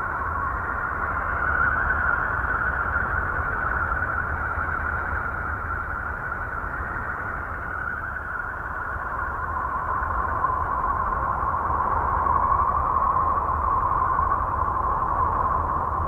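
Eerie space-sound drone made from NASA Voyager spacecraft data for Uranus: a wavering, whooshing hiss with a low rumble underneath. The hiss slowly sinks in pitch and swells twice, about two seconds in and again near the end.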